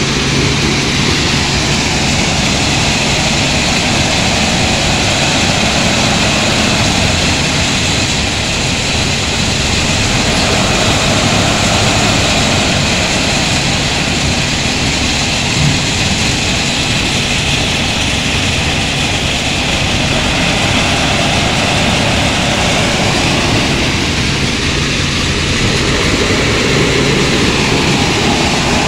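Wheel loader's diesel engine running steadily as it loads a dump truck with sand, in a continuous din of heavy machinery.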